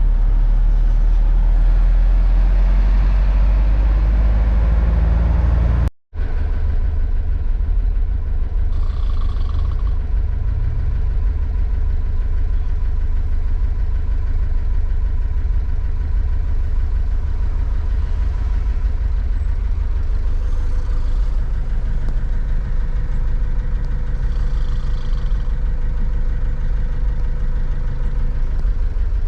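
Small Mercedes-Benz truck's diesel engine running steadily, a low drone heard from inside the cab. The sound breaks off for a moment about six seconds in and then resumes as the same steady drone.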